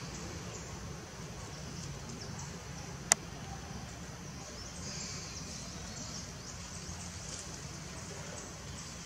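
Steady outdoor background noise with faint high chirping, broken once by a single sharp click about three seconds in.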